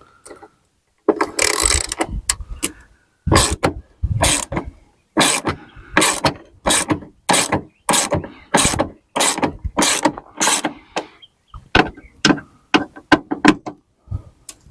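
Hand ratchet with a T27 Torx bit clicking in repeated back-strokes, about two to three a second, as it backs out the screws holding a truck's exterior door handle.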